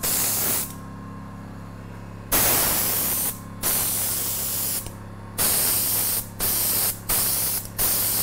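Paint spray gun hissing in short trigger-pull bursts, about six of them, each up to a second long with brief pauses between. A steady low hum runs underneath.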